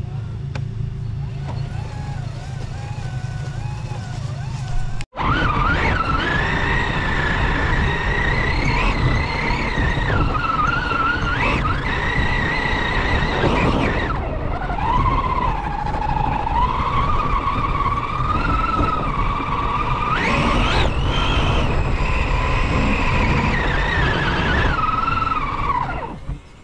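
Electric motor and gear whine of a radio-controlled truck, heard from a camera mounted on the truck, gliding up and down in pitch with the throttle. It follows a low rumble in the first few seconds, which breaks off abruptly about five seconds in.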